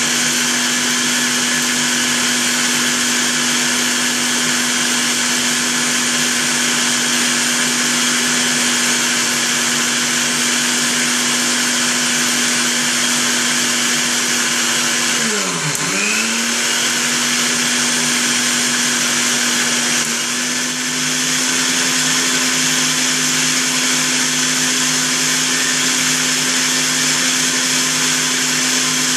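Maharaja Whiteline mixer grinder running with its small steel jar, grinding dried tomato pieces into fine powder: a loud, steady motor whine. About halfway through the motor slows sharply and spins back up, and a few seconds later its pitch steps up slightly.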